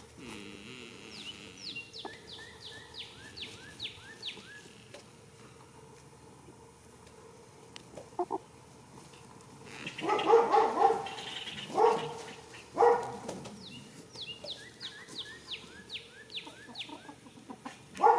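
A goat snoring: a cluster of loud, rough snores about ten to thirteen seconds in and another near the end. A bird twice sings a short run of quick, high, falling notes.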